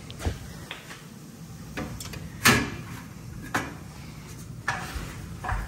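A series of sharp knocks and clatters from a sheet-metal boiler access panel being handled and taken off. The loudest comes about two and a half seconds in.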